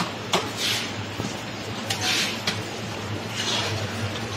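Plastic body panels of a Hindware i-fold air cooler being handled and pressed into place: a few sharp clicks and short scraping rushes, over a low steady hum.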